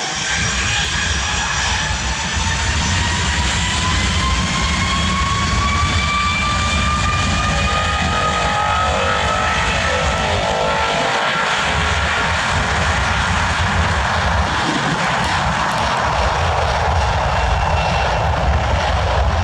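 A jet airliner's engines running loud near the runway, a steady rumble under several whining tones that slowly rise in pitch through the first half.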